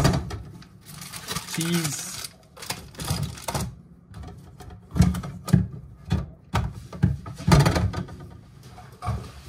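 Groceries being handled and put into a fridge: irregular knocks and clatters of jars and packages being set down, with rustling packaging in between.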